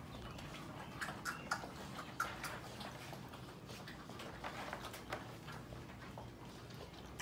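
Sheepadoodle puppies scuffling around and over their mother, with scattered light clicks and ticks throughout and a few short, faint puppy squeaks in the first half.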